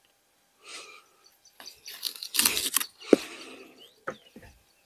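Knife cutting through prickly pear cactus pads: crunching, tearing strokes in several bursts, with a sharp click about three seconds in.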